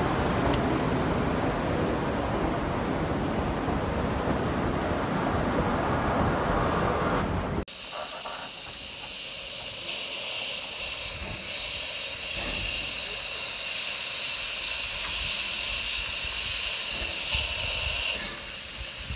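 A steady, deep rushing noise breaks off sharply at a cut about seven seconds in. Then Durango & Silverton steam locomotive No. 476, a K-28 2-8-2, stands hissing steam steadily, the hiss dropping away shortly before the end.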